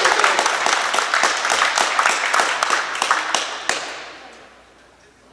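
A small group applauding, a quick run of hand claps in a large hall that dies away about four seconds in.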